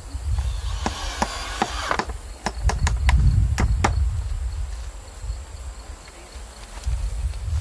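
Cordless drill driving screws through a corrugated Ondura roofing sheet into pallet wood: a short run of the drill near the start, then a series of sharp clicks over the next few seconds.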